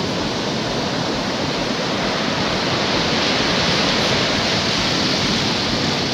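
Steady rushing noise of ocean surf breaking and washing up a sandy beach.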